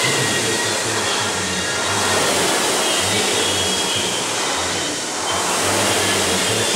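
Rowing machine's fan flywheel whirring in a steady rush of air, swelling a little with the strokes.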